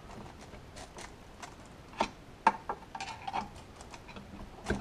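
Metal parts being handled: scattered light clicks and taps, with sharper knocks about two seconds in, about half a second later, and again near the end.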